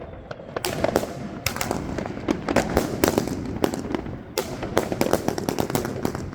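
China Red Bulldozer firework going off: a rapid, irregular run of sharp bangs and cracks, several a second, easing briefly near the start and again about four seconds in.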